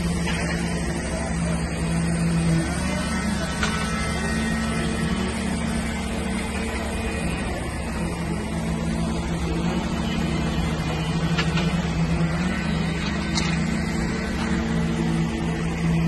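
Concrete pump truck's diesel engine running steadily during a pour, a constant drone whose pitch shifts slightly now and then, with a few faint clanks.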